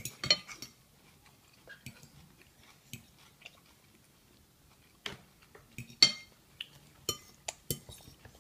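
Metal forks clinking and scraping against a bowl of noodles in scattered sharp clicks, a cluster near the start, a quiet stretch in the middle, then more from about five seconds in, the loudest about six seconds in. A small child chewing between the clinks.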